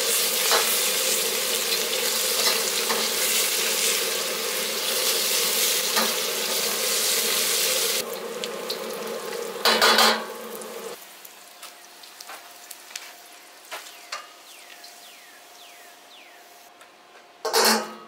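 Onions and aromatics sizzling as a metal ladle stirs and scrapes them around a carbon steel wok over a jet burner, charring them to season the wok. About eight seconds in the sizzle drops, and there is a short loud scrape about ten seconds in. The burner's steady running stops about a second later, leaving a faint background and one more short loud burst near the end.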